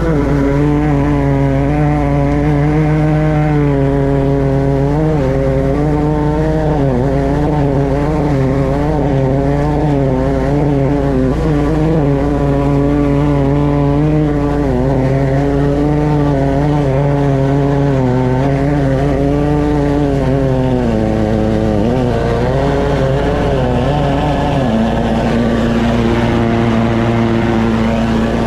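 High-pressure drain jetter's engine running steadily while jetting a blocked stormwater pipe, its pitch wavering under load and settling a little lower near the end.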